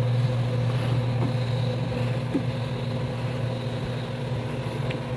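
Steady low machine hum, with a few faint small clicks.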